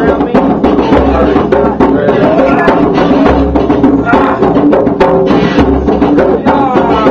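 Drum circle jam: several djembes and hand drums playing a busy, steady rhythm, with an electric guitar playing along and a deep bass drum stroke about every two seconds.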